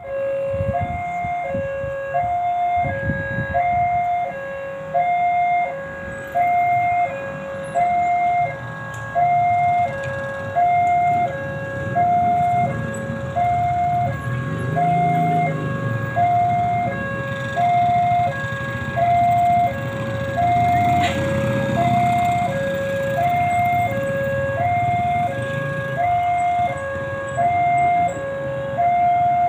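Railway level-crossing warning alarm sounding: an electronic two-tone signal alternating steadily between a higher and a lower note about once a second, warning of an approaching train. A low rumble runs underneath, strongest in the middle.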